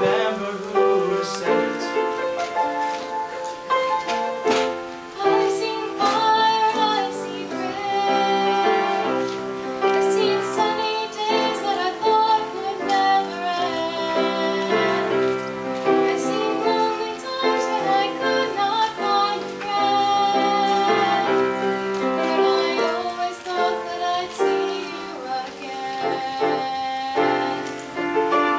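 A teenage girl's solo voice singing a slow song, accompanied by piano.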